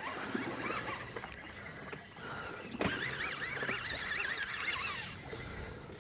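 Seabirds calling, many short squawks overlapping, with a sharp knock about three seconds in.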